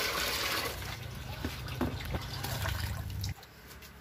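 Water poured from a plastic dipper into a bucket, splashing steadily, then stopping about three seconds in.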